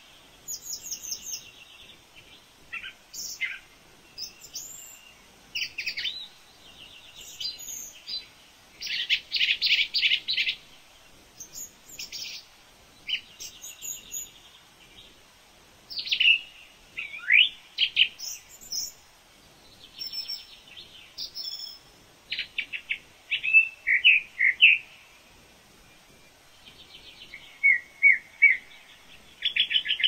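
Wild birds calling: bursts of short chirps, rapid trills and quick down-sliding whistled notes, with brief pauses between phrases.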